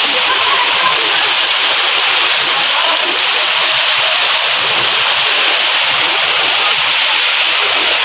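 Small waterfall cascading over rock into a pool, a steady loud rush of falling water.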